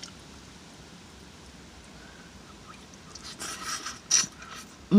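Wet chewing and lip smacking from eating, starting about three seconds in after a quieter stretch, with one sharp smack near the end.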